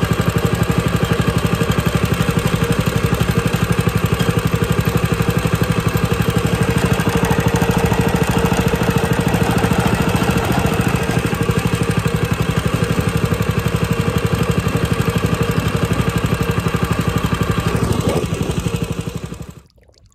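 Small four-stroke engine of a homemade belt-drive longtail mud motor running steadily with a rapid pulsing beat. It winds down and cuts off near the end.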